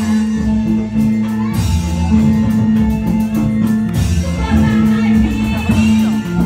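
Loud music with held low notes that change every second or two, plucked-string instruments and singing.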